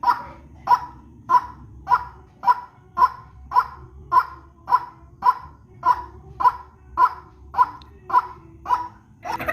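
Recorded call of a white-breasted waterhen (ruak-ruak), played as a bird lure: a steady series of short, evenly spaced notes, a little under two a second.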